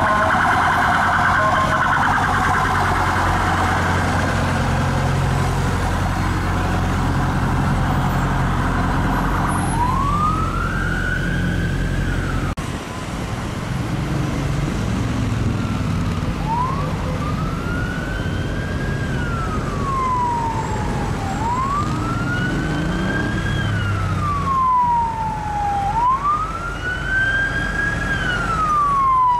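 Police sirens in traffic. First a fast warbling siren, which changes to a wail sweeping up and down. After a cut about twelve seconds in, another police siren wails in slow cycles, each rising quickly and falling slowly over about four seconds, over a low engine and road rumble.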